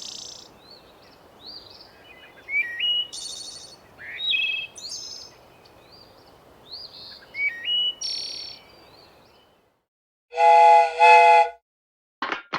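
Birds chirping in short repeated rising calls over a steady light breeze, which cut off about nine and a half seconds in. After a short silence, a model train's low steam whistle gives two short toots.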